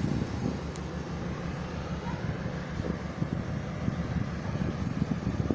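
Steady rumble of a passenger train in motion, heard from a coach window, with wind buffeting the microphone.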